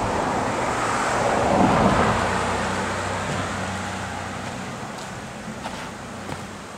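A passing vehicle's road noise swells to a peak about two seconds in and then fades away. A few faint ticks come near the end.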